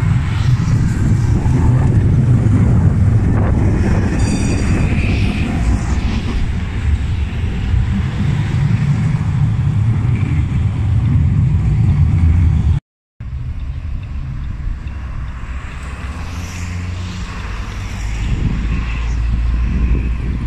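Trams passing close by on a street track: a loud steady low rumble of wheels and running gear that stops abruptly about 13 seconds in. After that, quieter city street noise with traffic.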